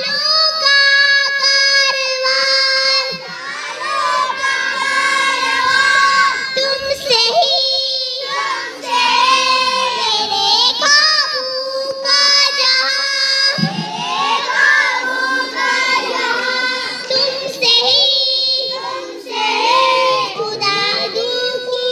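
Young kindergarten children singing a song together in chorus, many small voices on held notes.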